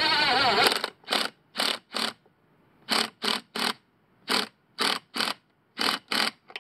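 Cordless Ni-Cd power driver running under load for just under a second, then about a dozen short trigger bursts in quick succession. It is running down and snugging up the nut on an outboard motor's transom mounting bolt.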